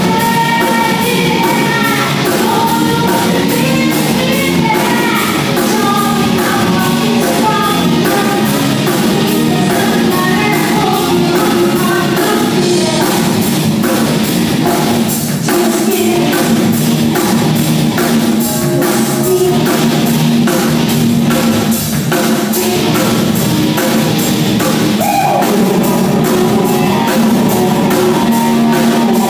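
Live rock band playing: a woman sings lead over drums, electric guitar, bass guitar and keyboard.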